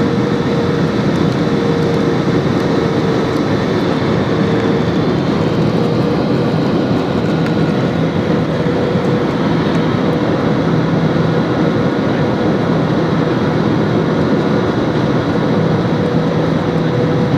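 Jet airliner heard from inside the passenger cabin: a steady roar of engines and airflow, with a few faint steady whining tones running through it.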